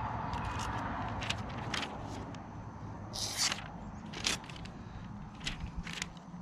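Steel knife blade drawn across a fine whetstone to polish the edge: steady rubbing for about the first two seconds, then a handful of short, separate scrapes.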